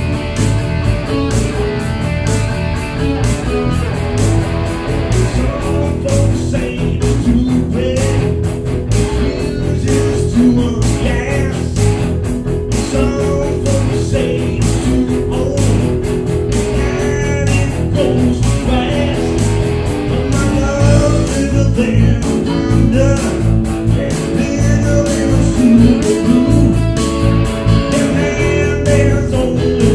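Rock band music: guitars over a steady drum beat, with a wavering melody line, likely a voice, coming in about six seconds in.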